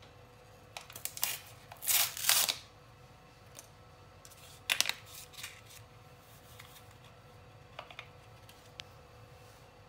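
Paper sachet of baking powder being handled and torn open: a few sharp crinkling rips, loudest about two seconds in, another about five seconds in, then light taps as the powder is shaken out. A faint steady hum sits underneath.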